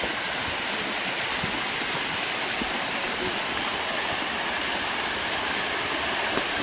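Small waterfall splashing down a rock face close by: a steady rush of falling water.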